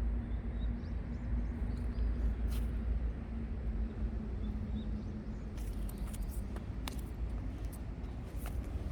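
Outdoor ambience: a steady low rumble with a faint hum, small high chirps in the first half, and a few sharp clicks or ticks in the second half.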